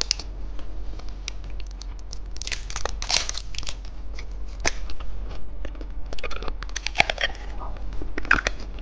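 Plastic candy packaging being torn open and crinkled by hand, with scattered sharp clicks and crackles.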